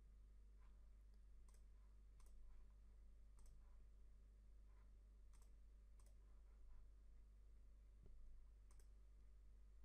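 Faint computer mouse clicks, several of them at irregular intervals, over a low steady hum.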